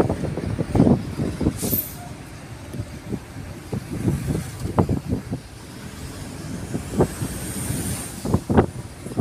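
Riding inside a moving car: a steady low road rumble with irregular short knocks and rattles as it goes over the road, and a brief hiss about a second and a half in.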